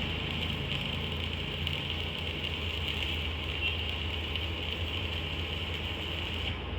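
A machine running steadily: a continuous low engine-like hum with a hissing band above it, likely the brick-press machine's motor.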